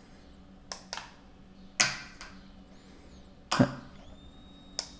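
A few sharp clicks as the power is switched on, the loudspeaker giving only a click because the bridged TDA7293 amplifier does not start. About four seconds in, a steady high-pitched tone from one of the bench power supplies begins and holds.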